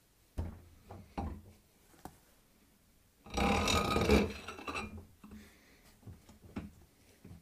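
A small lawn tractor wheel and tire being handled and set down over the threaded post of a mini tire changer: a few light knocks, then about a second of loud rubbing scrape from the tire a little over three seconds in, and a couple more knocks near the end.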